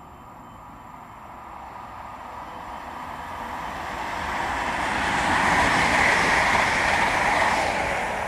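A train passing by: its noise grows steadily louder, peaks about six seconds in, and starts to fade away near the end.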